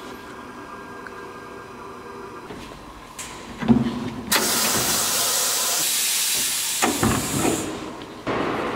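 Wheel balancer's pneumatic clamping releasing the wheel: a knock, then a loud hiss of exhausting air for about three seconds that cuts off sharply.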